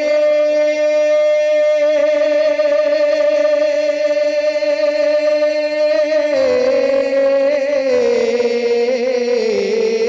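A man singing a manqabat, a devotional Urdu song in praise of a saint, into a microphone. He holds one long high note for about six seconds, then the melody steps down in pitch over the last few seconds.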